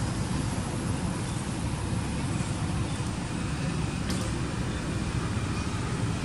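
Steady low rumbling background noise with no distinct animal calls.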